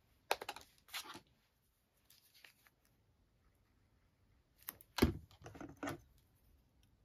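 Paper and card being handled as small buttons are stuck onto a card gift: short rustles and taps in two clusters, one near the start and a louder one about five seconds in.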